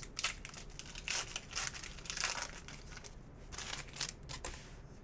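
Crinkling and rustling from trading cards and their plastic packaging being handled and sorted by hand, in irregular bursts, busiest in the middle.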